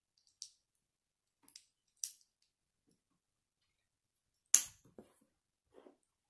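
Small plastic Lego pieces being handled and snapped together: a few sharp, separate plastic clicks, the loudest about four and a half seconds in.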